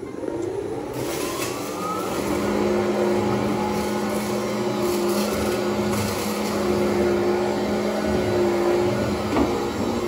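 Hoover ONEPWR HEPA+ cordless upright vacuum cleaner starting up, its motor whine rising in pitch over the first two seconds, then running steadily as it is pushed across a tile floor. Its pitch dips briefly near the end.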